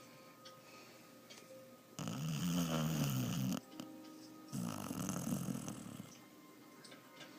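Two loud snores, each about a second and a half long, with a wavering pitched rumble; the first comes about two seconds in and the second about a second after it ends.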